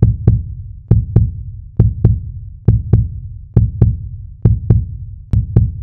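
Heartbeat sound effect: a double thump, lub-dub, repeating seven times at a steady pace of a little over one a second.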